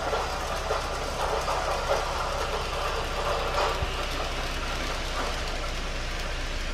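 N-gauge model train, an ED19 electric locomotive hauling TOMIX Wamufu 100 freight wagons, running past on the layout track: a steady whirring with fine clicking from the small wheels on the rails.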